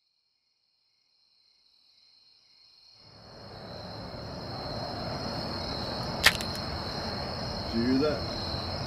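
Crickets chirping in a steady high drone, fading in out of silence over the first few seconds. A single sharp click comes about six seconds in, and a short rising low sound near the end.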